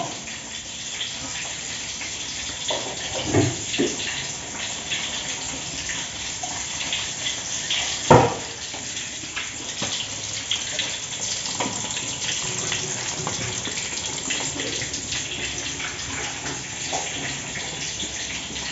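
An egg frying in hot oil in a wok, sizzling and crackling steadily, with a few short knocks, the sharpest about eight seconds in.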